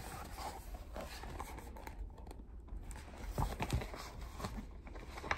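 Pages of a picture book being turned and handled: faint paper rustles and light knocks, a few of them louder about three and a half seconds in.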